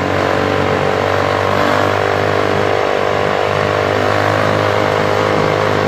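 Motor vehicle engine running steadily at speed, under a constant rush of road and wind noise.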